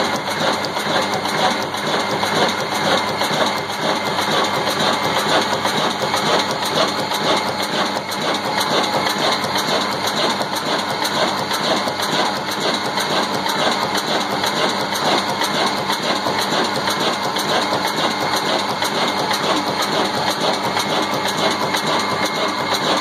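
Old Ruston Hornsby stationary diesel engine running steadily, with a rapid, even mechanical clatter from its moving parts.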